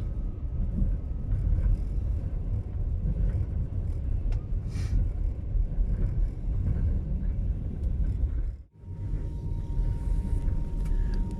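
Passenger train running, a steady low rumble of the moving train. About three-quarters of the way through the sound cuts out abruptly for a moment and comes back, followed by a faint steady whine.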